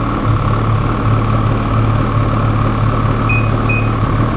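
Ski-Doo 800 E-TEC two-stroke snowmobile engine idling steadily, already warmed up.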